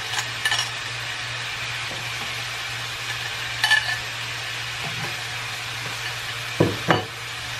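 Ground beef sizzling in a frying pan while chopped onion is scraped out of a metal bowl with a spoon, a few light clinks of the spoon on the bowl, and two sharp taps near the end.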